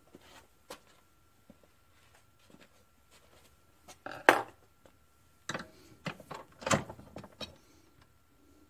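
Small metal engine parts clinking and clattering against a steel bowl and the workbench as they are picked up and handled: a series of sharp clinks, the loudest about four seconds in, then a cluster of lighter ones.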